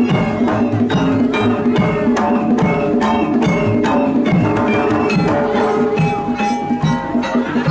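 Jaranan gamelan music: hand drums and struck tuned gongs and metallophones playing a dense, busy rhythm.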